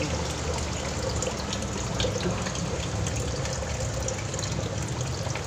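Steady rushing noise of running water, with a few faint ticks.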